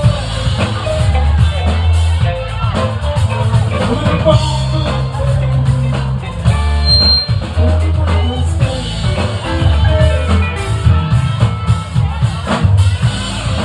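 Live band playing loud amplified music: electric guitar, bass guitar and drum kit, with held bass notes and a steady drum beat.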